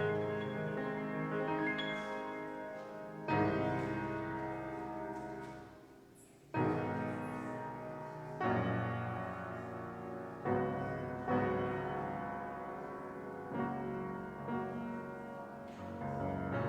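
Solo piano playing a slow classical prelude: chords struck every second or two and left to ring and fade, with one long fade before a strong chord about six seconds in.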